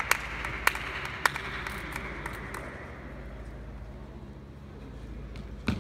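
Table tennis between points: scattered clapping fades out while three sharp taps sound about half a second apart. Near the end comes one louder sharp knock as the ball is struck to serve.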